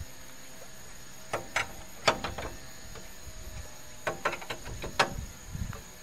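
Cross-shaped lug wrench working the wheel nuts of a Honda Life's rear wheel as they are tightened: a scattering of sharp metallic clicks and clinks, a few at a time, over a steady high thin tone.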